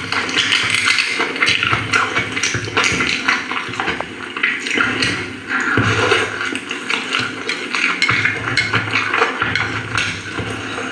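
Close-up eating noises: wet chewing and mouth sounds, irregular and continuous.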